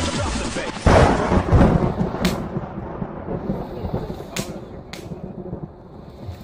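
Dance music stops about a second in, and a sudden loud boom rolls out and fades over a second or two. A few sharp cracks follow, spaced a second or two apart.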